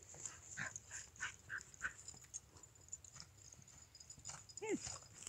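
A dog barks once near the end. Before that comes a quick run of five or six short, high chirps, over the faint hoofbeats of a horse cantering on sand.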